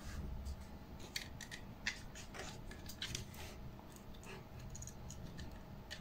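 Faint, scattered small clicks and scrapes as a wire and a small screwdriver are worked into the terminal of a smart light switch, fastening the live wire.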